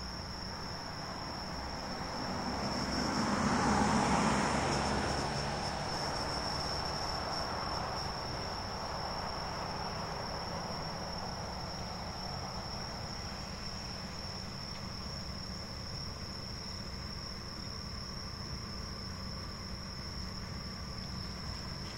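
Crickets chirring in one steady high-pitched tone, over the running noise of a slowly moving locomotive in a rail yard. The locomotive's noise swells to its loudest about four seconds in, then settles into a lower, steady rumble as it creeps forward during shunting.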